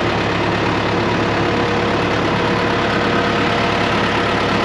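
Vehicle engine running steadily, heard from inside the cab.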